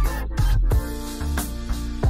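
Background music with a steady beat and held notes.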